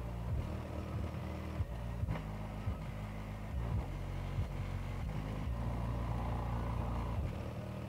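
Bass-heavy music played through a bare Soviet 75GDN-3-4 woofer driven at about 1.5 W. Its deep bass notes change every fraction of a second and dominate, with little treble.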